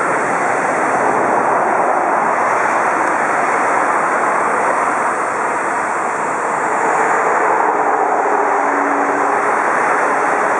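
Steady rush of road traffic on a highway right beside the railway, with trucks and cars passing.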